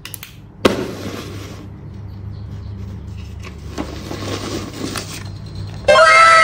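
Steady low hum with a light hiss and a few soft clicks, then nearly six seconds in a loud sparkle sound effect of many bell-like tones gliding up and down.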